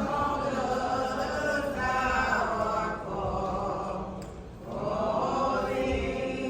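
A group of voices singing slowly together, holding long notes, with a short break between phrases about four seconds in.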